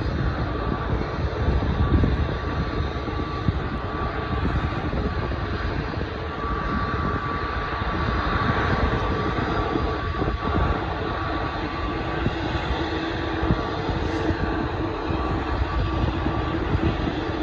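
Boeing 787 Dreamliner's jet engines running steadily, a constant whine over a low rumble.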